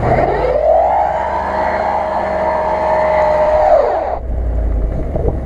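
Land Rover Discovery II revving hard with its front wheel spinning on snow and ice. A whine rises in the first second, holds steady, then falls away and stops about four seconds in, over a low engine rumble.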